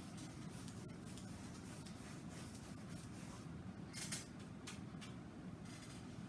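Paintbrush stroking acrylic paint across a stretched canvas: a series of soft, scratchy swishes, the loudest about four seconds in, over a steady low hum.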